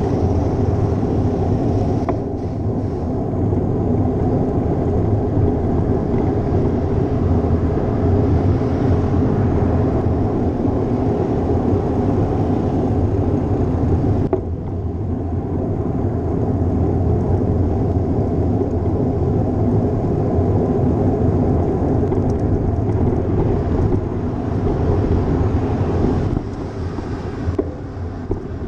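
Steady low rumble of wind and road noise on a GoPro riding on a moving bicycle. The level drops abruptly a few times.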